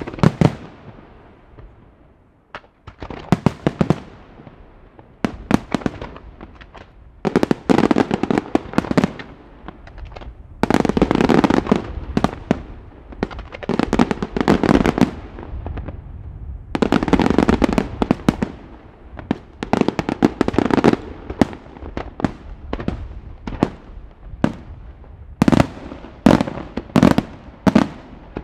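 Professional fireworks display: aerial shells and comets going off in dense volleys of rapid bangs that come in waves a few seconds apart. Near the end there is a quick run of separate, sharp single bangs.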